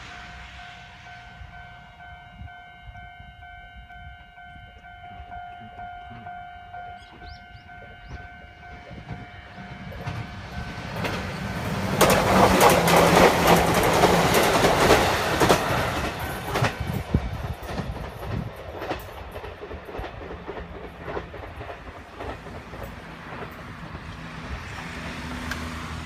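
Nagano Electric Railway 2100-series 'Snow Monkey' limited express electric train passing at speed close by, wheels clicking over the rail joints; it is loudest from about twelve to sixteen seconds in, then fades to a rumble. For about the first ten seconds, before it arrives, a steady ringing warning signal sounds.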